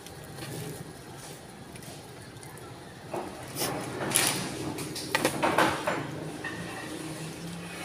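Eating sounds: a spoon scraping and scooping rice in a plastic-bag-lined bowl, with the bag rustling, and a mouthful being taken and chewed. The sounds come in a few short, noisy bursts around the middle.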